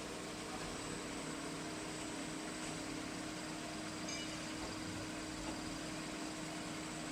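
Vertical CNC machining centre running: a steady mechanical hum with a constant low tone and a faint high whine.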